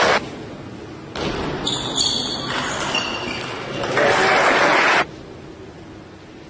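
Table tennis ball clicking off the bats and table in a rally, a few sharp hits about a second apart, in a large echoing hall. Louder stretches of rushing noise from the hall come and go, the loudest near the end of the rally.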